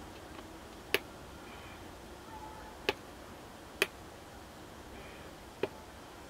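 Four sharp clicks, unevenly spaced, from the small tactile push-buttons on a DSO138 oscilloscope kit board being pressed.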